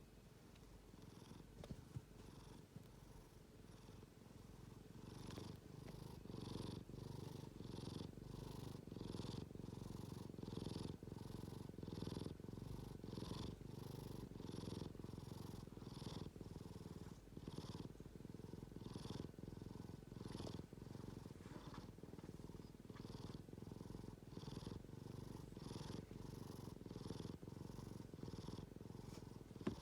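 A sleeping pet snoring: a steady low rumble with a hissy rasp on each quick, regular breath, growing stronger about five seconds in.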